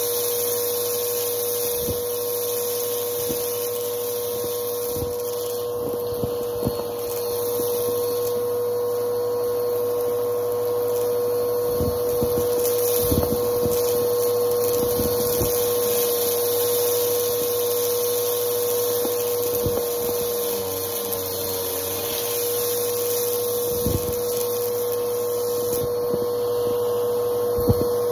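PowerForce upright vacuum cleaner running with a steady whine, sucking lint and debris off carpet through its hose wand. Scattered clicks and knocks sound throughout as debris goes up the hose.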